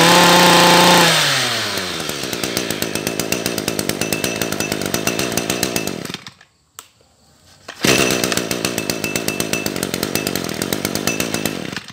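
Echo EGT260 brush cutter's 26 cc two-stroke engine held at high revs, then the throttle is let off and it drops to a rhythmic idle. About six seconds in the sound stops, and about two seconds later the engine is idling again.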